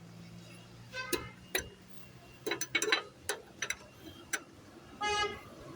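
Irregular sharp metallic clicks and knocks of hand tools at work on a car wheel, about a dozen spread over several seconds. About five seconds in comes one brief high squeak.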